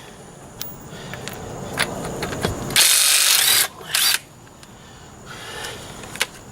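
Ryobi cordless impact wrench hammering in a burst of under a second about three seconds in, then a short blip, spinning a lug nut off a car wheel. Quieter clicks and handling noise around it.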